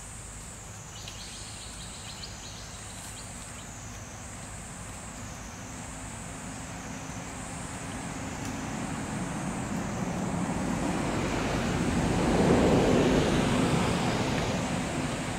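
A motor vehicle passes by: engine and road noise build gradually, are loudest about twelve to thirteen seconds in, then fade near the end. Under it runs a high, steady insect drone that wavers slightly.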